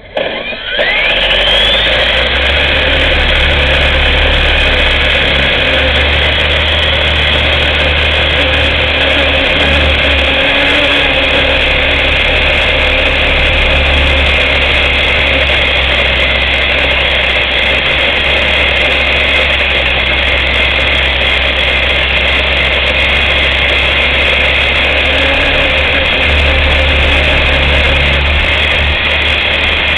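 Small RC aircraft's motor and propeller, heard close up through the onboard camera: it starts suddenly, spins up in a rising whine over the first two seconds, then runs loud and steady in flight.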